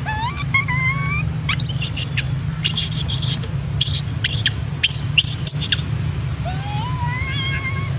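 Juvenile long-tailed macaque crying: rising, wavering whimpers near the start and again near the end, with a string of short, very high-pitched squeals in between, over a steady low hum.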